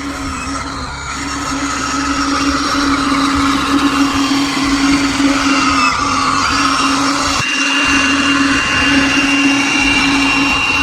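Small electric motor of a radio-controlled model vehicle running with a steady whine, cutting out briefly about seven and a half seconds in.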